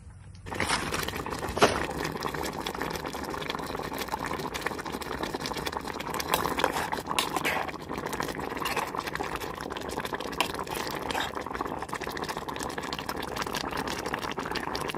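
Pork curry simmering in a pot: steady bubbling with many small pops, starting suddenly about half a second in.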